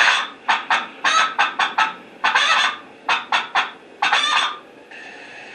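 Recorded chickens clucking, played back from a farm sound-effects track through a small speaker on a sound-card module. A fast run of short clucks with a couple of longer squawks, stopping shortly before the end.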